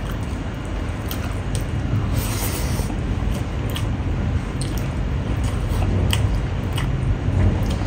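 Close-up wet chewing of a hand-fed mouthful of rice and pork, with many small sharp clicks and smacks from the lips and mouth. There is a brief hiss about two seconds in.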